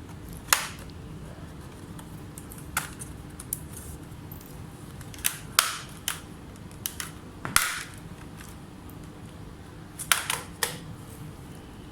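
Irregular sharp clicks and taps, about a dozen, from small tools and laptop parts being handled at a repair bench, over a faint steady hum.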